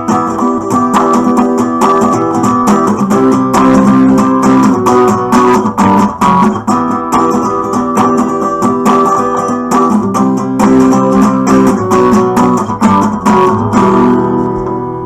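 Acoustic guitar strummed in a steady rhythm; near the end the strumming stops and the last chord rings out, fading.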